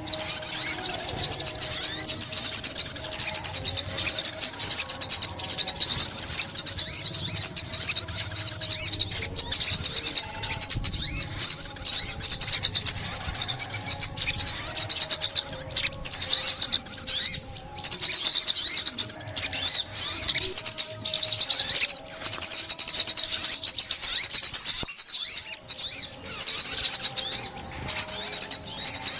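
Sunbird singing: a continuous run of rapid, high-pitched twittering trills, broken only by a couple of brief pauses.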